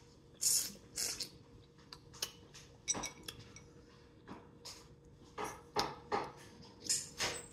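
Close-up eating sounds: a string of short wet smacks and sucks as sauce-covered fingers are licked clean, with food being handled in a glass bowl of seafood boil sauce.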